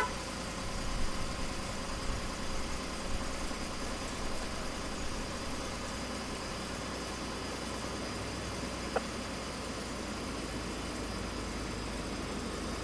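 2018 Ford F-150 idling with the air-conditioning fan blowing, heard from inside the cab: a steady low rumble under an even rush of air. A single sharp click about nine seconds in.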